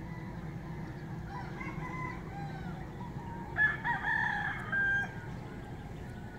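Rooster crowing: one loud crow beginning about three and a half seconds in and ending on a held high note, with fainter crowing before it.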